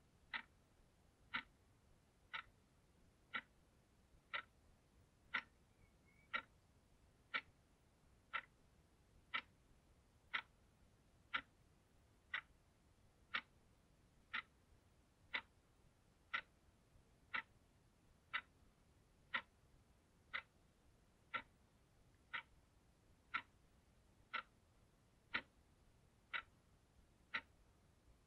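Analogue clock ticking, one short crisp tick about every second as the second hand steps.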